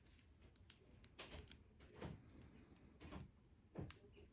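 Near silence with a few faint clicks as a clip cord is fitted onto a tattoo machine's binding post and the two are handled; the machine is not running. The clearest click comes near the end.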